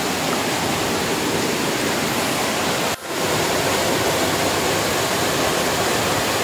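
Steady rush of water falling at a waterfall, briefly cutting out about three seconds in.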